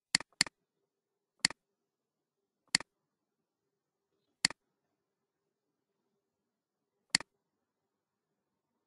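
Computer mouse button clicking: six sharp clicks spaced a second or more apart, the first two close together like a double-click, each a quick press followed by its release.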